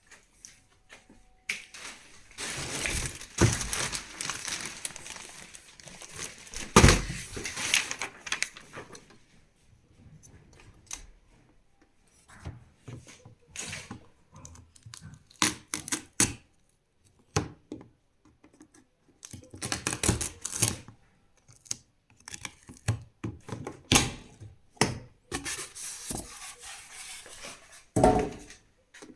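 Washing-machine packaging being torn open and handled: irregular tearing and crinkling of wrapping, broken by scattered knocks and thunks.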